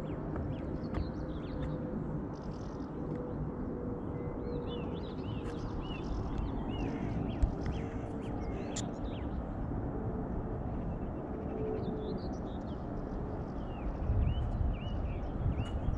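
Small birds chirping: runs of short, arched chirps repeating a few times a second, about five seconds in and again near the end, over a steady low rumble of outdoor background noise.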